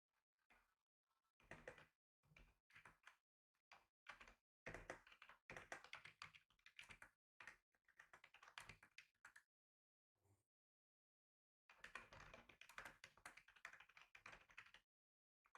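Faint typing on a computer keyboard: a few scattered keystrokes, then two runs of fast, continuous typing, one starting about four and a half seconds in and one about twelve seconds in, with a short pause between them.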